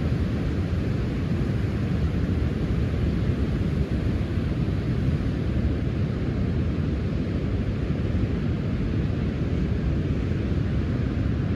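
Sea surf recorded at the shore: a steady, low rushing wash of water with no single wave standing out.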